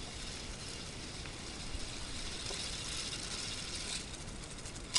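Motorised K'nex bus chassis running in the fast gear of its plastic two-speed gearbox: a steady whir of gears with fine rapid clicking. A sharp clack right at the end as the gear is changed.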